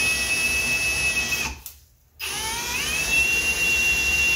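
Cordless drill boring a hole through a vehicle's sheet-metal body panel at slow speed: a steady motor whine that cuts out about a second and a half in, then winds back up with a rising whine about half a second later and runs steady again.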